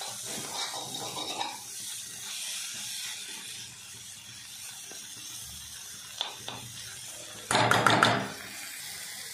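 Steel spatula stirring and scraping drumstick-and-egg thoran around a metal kadai on high heat, over a steady sizzle from the frying food. Near the end comes one much louder scrape of the spatula against the pan.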